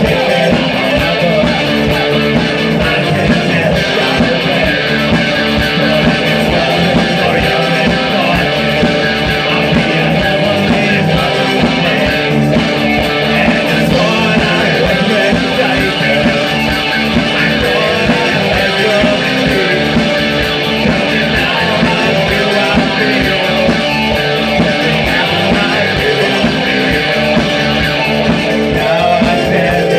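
Live new wave rock band playing: electric guitars, bass guitar and drums at a steady, driving beat.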